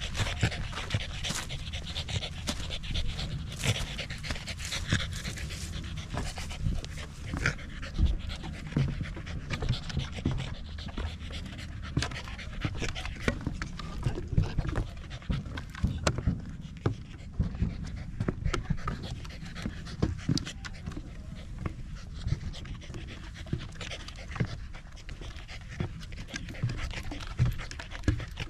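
A Pembroke Welsh corgi panting fast and steadily as it trots at heel. Footsteps on a gravel path give way to steps on a wooden boardwalk partway through, making frequent short knocks.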